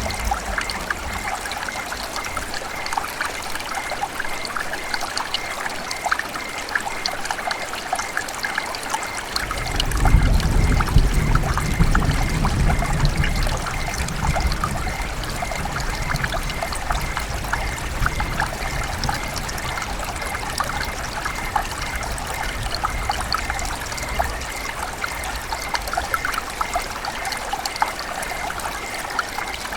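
River water running and trickling steadily. About ten seconds in, a deeper low rumble swells up, then fades out over the next ten seconds or so.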